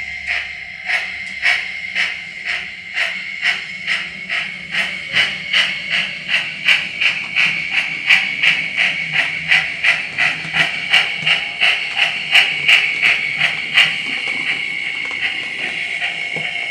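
Model steam locomotive's DCC sound decoder playing steam exhaust chuffs through its small onboard speaker, about two to three beats a second and quickening slightly, over a steady high tone. The chuffs stop about two seconds before the end, leaving a steady steam hiss.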